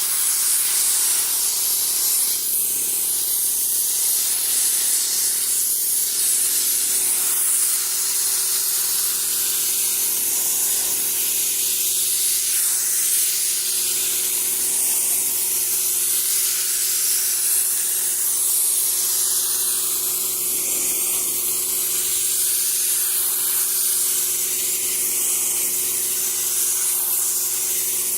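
Paint spray gun hissing steadily as it sprays, with a steady hum underneath.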